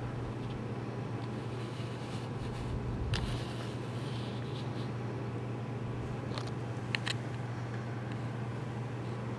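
Tektronix Type 564 storage oscilloscope running with its cover off: a steady low hum under an even whirring rush. A few light clicks and knocks come about three seconds in and again around seven seconds in.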